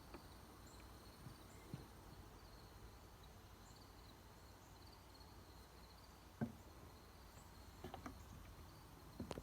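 Near silence: faint outdoor background with quiet, repeated high chirping of insects and a few soft clicks or knocks, the loudest about two-thirds of the way through.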